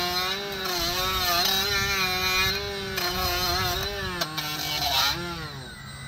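Cordless Milwaukee FUEL rotary tool spinning an abrasive disc against a rusty brake caliper bracket to clean off corrosion. Its motor whine wavers and sags in pitch as the disc is pressed onto the metal, then drops about four seconds in and stops just before the end.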